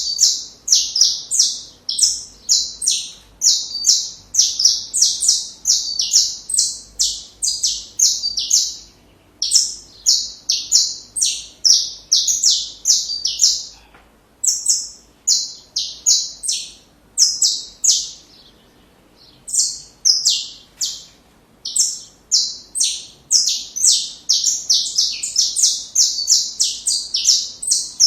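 Saffron finch (canário-da-terra) singing a long, fast song of short, high, chirping notes. It breaks off briefly twice near the middle.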